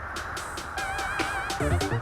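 Electronic background music with a steady beat, its bass and synth line building up near the end.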